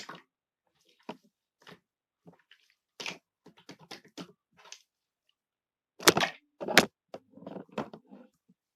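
Slime being squeezed and pressed by hand, giving irregular crackling and squishing pops, with two louder pops about six and seven seconds in.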